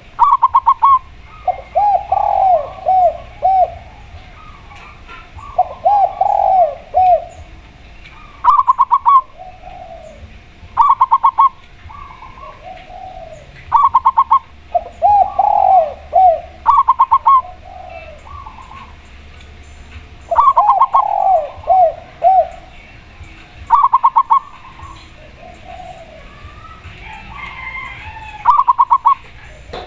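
Spotted dove and zebra dove cooing in turn. Quick runs of short clipped notes alternate with lower, drawn-out coos that rise and fall, one phrase every two to three seconds.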